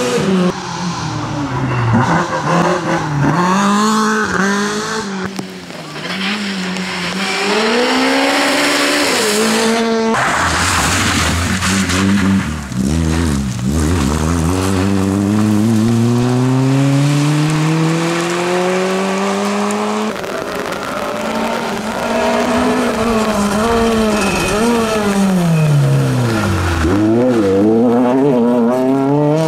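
Rally car engines at full competition revs, three cars in turn. Each drops in pitch as it brakes and downshifts into a corner, then rises as it accelerates away through the gears.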